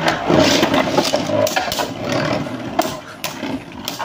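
Two Takara Tomy Beyblade Burst tops, Apollos and Bloody Longinus, handled, then spinning in a plastic stadium: a scraping whir on the plastic floor, broken by several sharp clacks as parts knock together or the tops collide.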